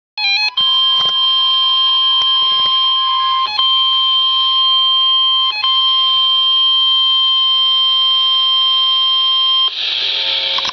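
Emergency Alert System attention tone: after a brief run of stepped beeps, a single steady high-pitched alarm tone sounds for about nine seconds, broken twice for a moment. Near the end it gives way to a hissy, noisier sound.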